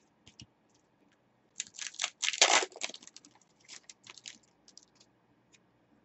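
Footy trading cards and their pack wrappers handled by hand: a burst of crinkling and rustling about a second and a half in, loudest near the middle, then scattered light clicks and rustles as cards are shuffled.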